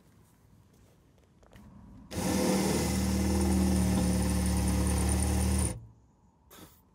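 Cordless drill running steadily, boring a hole up through the van's sheet-metal floor from underneath. It starts about two seconds in and stops abruptly after about three and a half seconds.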